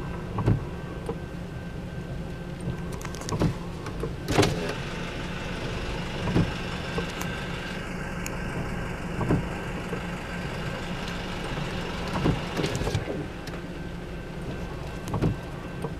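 Windshield wipers sweeping across a rain-wet windshield, a short thump from each stroke about every three seconds, over the steady low rumble of a car's cabin.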